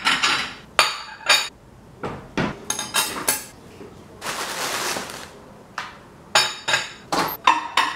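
Metal cutlery and a glass plate clinking and knocking as they are set down on a granite countertop: a series of sharp clinks with short ringing. There is about a second of rustling near the middle.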